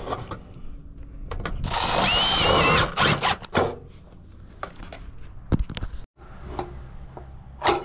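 Power drill running for about a second, with a wavering whine, followed by several sharp knocks.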